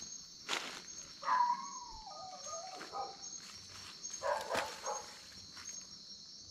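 A dog calling: a wavering whine that falls in pitch about a second in, then a short run of barks later, over crickets chirping steadily.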